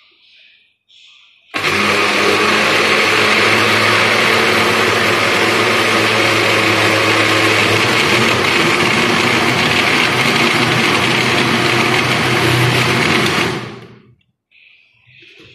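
Electric countertop blender switched on about a second and a half in, running steadily with a mango milkshake in the jug, then switched off near the end and winding down.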